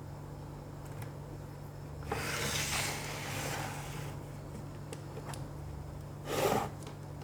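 Handling noise from working on an opened laptop: a rustle lasting about two seconds, starting about two seconds in, and a short knock near the end, with a few faint clicks, over a steady low hum.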